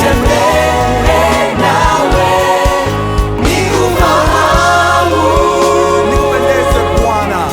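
Gospel worship song: a choir and lead voices singing over a band, with steady bass notes and regular drum hits.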